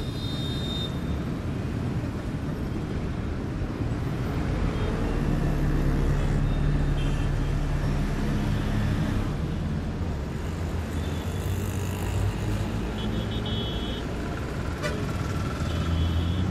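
Street traffic: a steady rumble of vehicle engines, with a few short horn toots.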